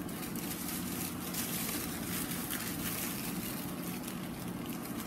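Sheets of tissue paper rustling and crinkling as they are lifted and squared up by hand, over a steady low hum.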